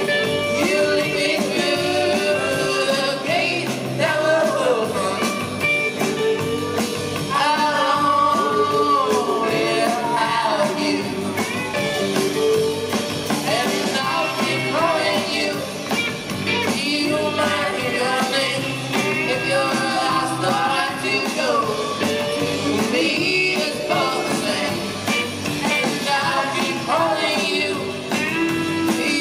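Garage-rock band playing live: electric guitars, drums and a sung lead vocal, heard from within the audience in a club.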